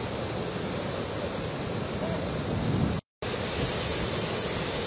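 Floodwater of the swollen Ghataprabha River rushing and churning over rocks: a steady rush of water, broken by a brief drop to silence about three seconds in.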